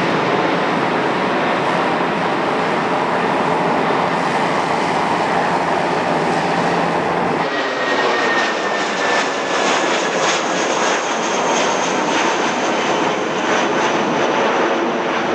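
Jet engine roar of a Boeing 747 climbing away after take-off. About halfway, a sudden cut changes it to an Airbus A320 taking off low overhead: steady engine roar with a thin whine that slides slowly down in pitch as it passes.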